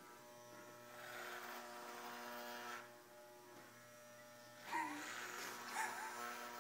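Electric hair clippers buzzing steadily while shaving a head. The buzz turns rougher and louder for about two seconds, about a second in.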